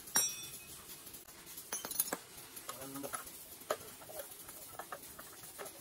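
Metal hand tools clicking and clinking against the fittings of a stripped-down engine as a wrench works around the throttle body. There is a sharp ringing clink just after the start, then scattered lighter ticks and taps with a few louder clicks.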